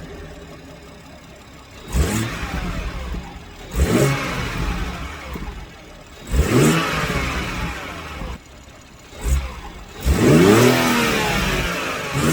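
A BMW M140i's turbocharged 3.0-litre straight-six, fitted with a new MST intake, idling and being blipped at a standstill. There are about five quick throttle blips, each a sharp rise in revs that falls back to idle.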